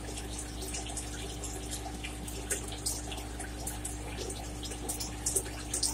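Wet, close-up eating sounds of crawfish being peeled and chewed: scattered short clicks, smacks and squelches of shell and sauce, several a second.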